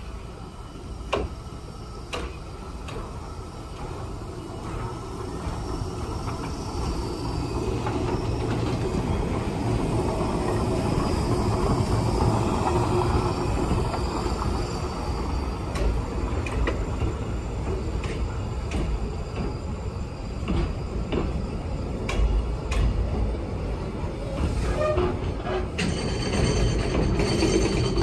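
A train running past on the tracks: a rumble that builds over the first several seconds and then holds steady, with scattered sharp clacks. A thin, high wheel squeal joins in near the end.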